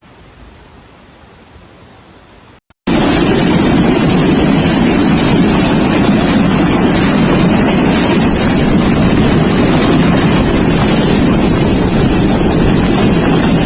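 Faint hiss, then about three seconds in a cut to a loud, steady rushing noise of a storm's wind and water.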